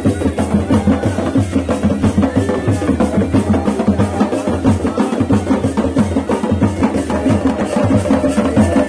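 Kumaoni chholiya band music: dhol and damau drums and cymbals beating a steady rhythm under the sustained reedy melody and drone of a masakbeen (bagpipe).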